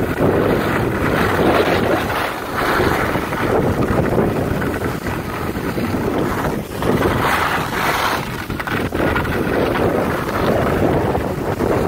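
Loud wind rushing over the microphone as the rider speeds down a groomed snow slope, swelling and dipping every second or two.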